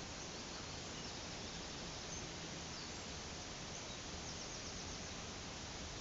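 Steady rush of flowing brook water and waterfall, with a few faint, high bird chirps scattered through.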